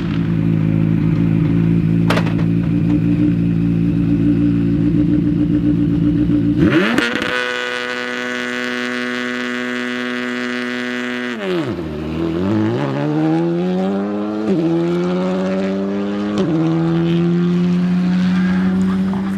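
Rally car engine on a special stage: it runs at steady revs, jumps abruptly to a higher, held pitch, then the revs fall away sharply before climbing again through two upshifts.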